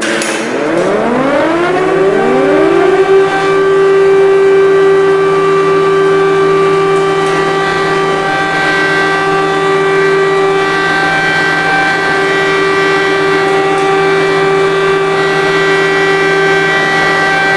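Civil defence (air-raid) siren winding up, its pitch rising over the first three seconds, then holding one steady wailing tone.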